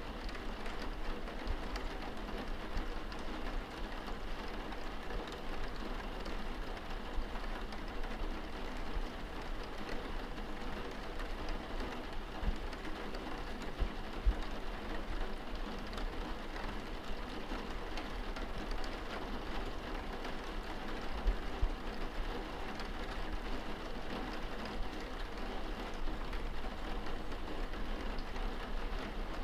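Steady rain on window glass, heard from inside the room: an even wash of drops, with a couple of brief louder knocks partway through.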